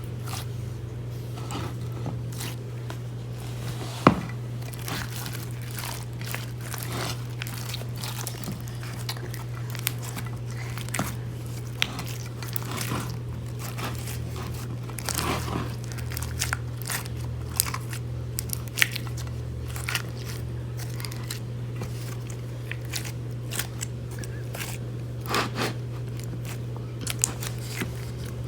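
Hands squishing and kneading slime, giving irregular sticky crackles and pops, over a steady low hum.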